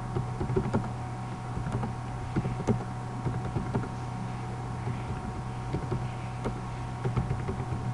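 Steady low hum with many faint, irregular clicks and ticks scattered over it.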